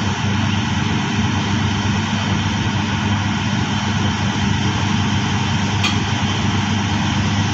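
Engines and hydraulic machinery of an HH-50 hydraulic drilling rig running at a steady pace: a loud, even drone with a deep hum.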